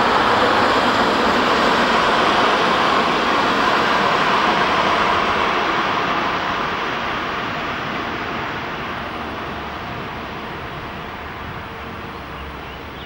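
A train running along the line, its noise fading steadily as it draws away.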